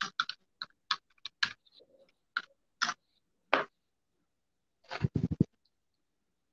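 Irregular light clicks and taps, about a dozen spread over the first three and a half seconds, then a quick cluster of four heavier taps about five seconds in.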